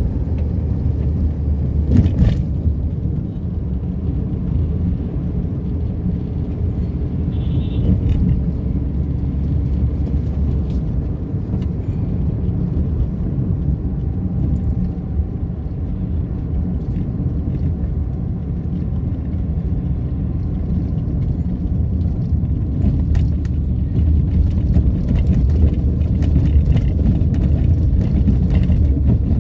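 Steady low rumble of engine and tyre noise inside the cabin of a car driving on a paved road, with a sharp knock about two seconds in and the noise growing a little louder near the end.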